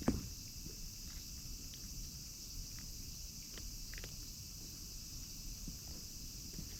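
A single thump just after the start, then sparse faint clicks over a steady high hiss.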